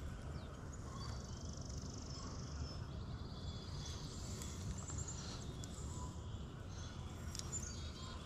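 Outdoor ambience: a steady low rumble with faint, high bird trills and chirps over it.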